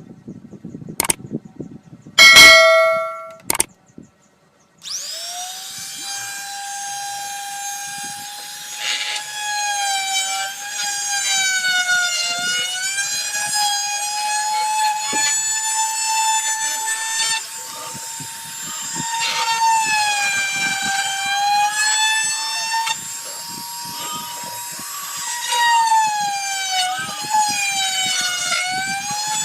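Electric wood router's motor running with a high whine, its pitch dipping and recovering again and again as the bit cuts into the wood. Before the motor comes on there are a few clicks and a brief loud tone, then a second of quiet.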